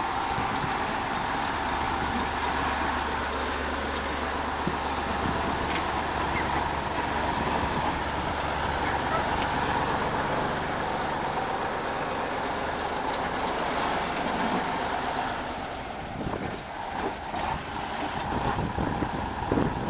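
GS-14 motor grader's diesel engine running steadily under work. Its low note fades about three-quarters of the way through, leaving rougher, uneven machine noise.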